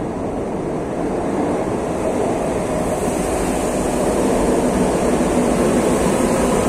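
Madrid Metro train pulling into an underground station, the rumble of its wheels and motors growing louder as the cars run along the platform. A thin high whine joins about three seconds in.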